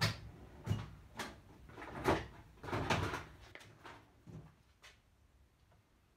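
A run of clunks and knocks as hand tools are rummaged and handled, about seven separate bumps in the first five seconds, the loudest about two and three seconds in.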